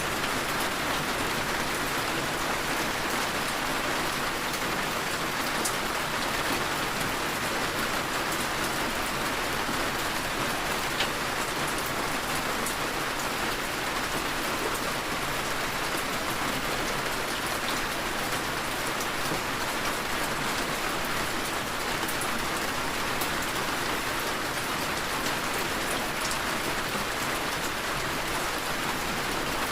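Heavy rain falling steadily, an even hiss with scattered small drop ticks.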